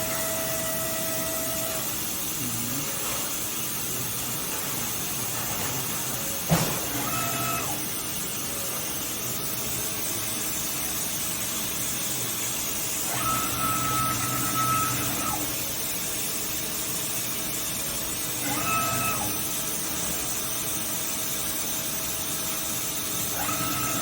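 Hitachi Seiki HS400 horizontal machining center running under power: a steady mechanical hum and hiss, broken by four short motor whines, the longest about two seconds, and one sharp clack about six and a half seconds in.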